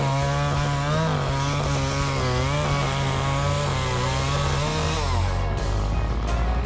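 Chainsaw running steadily, its pitch wavering and sweeping with the throttle, over background music.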